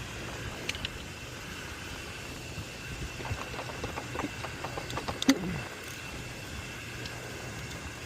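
Light clicks and clinks from hand work on an electric motor being taken apart, with one sharp knock a little past five seconds, over a steady machinery hum.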